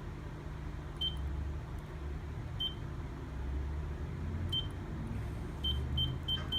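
Short, high key-press beeps from the FE2000 control panel as its menu keys are pressed, spaced out at first and then coming quickly one after another near the end, over a steady low hum.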